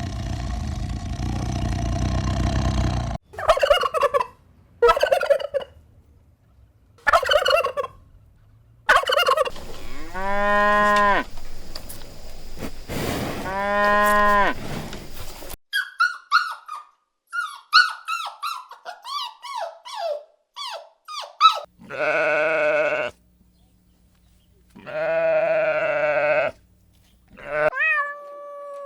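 A string of farm-animal calls, one kind after another: a few short calls, two long drawn-out calls, a stretch of rapid chirping, then two more long calls.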